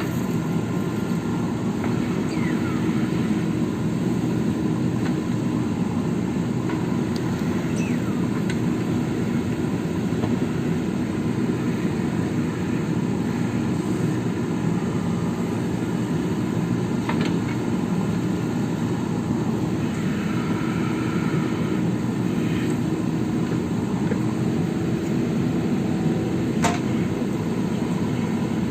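JCB backhoe loader's diesel engine running steadily at work, with an occasional short knock.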